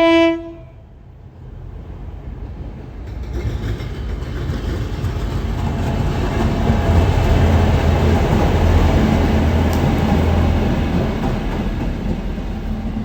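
The tail of a diesel locomotive's horn, one steady note that cuts off about half a second in, then a train rolling past: the locomotive's low engine drone and the rumble of wheels on rail build up, peak in the middle and slowly ease off.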